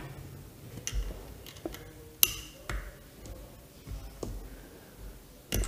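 Scattered light plastic clicks and taps as a small USB charging-cable plug is handled against the plastic casing and ports of a portable electric air pump, with a sharper knock near the end.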